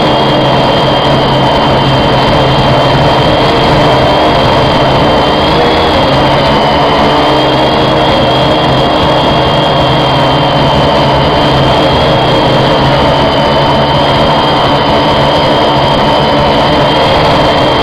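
Quadcopter's electric motors and propellers running steadily as it hovers, loud and close on its onboard camera, with a high whine that wavers slightly in pitch.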